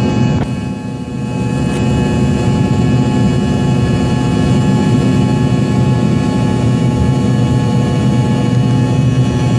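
Rolls-Royce AE 3007A1 turbofan of an Embraer EMB 145 at takeoff and climb power, heard from inside the cabin. It is a loud steady rush of engine noise with several steady whining tones over it. The noise dips briefly about a second in, then holds.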